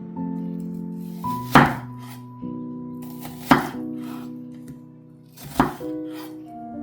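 Background music with held chords, over which a knife strikes a cutting board three times, about two seconds apart, as food is cut.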